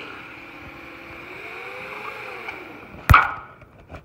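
Kato N-scale model locomotive's small motor whining faintly, its pitch rising and falling gently for a couple of seconds. A single sharp knock about three seconds in, followed by a few light clicks, after which the whine fades.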